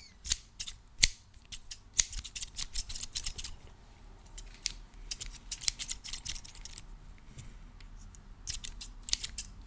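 Scissors snipping: sharp blade clicks, some single and some in quick runs of several, with quieter spells between.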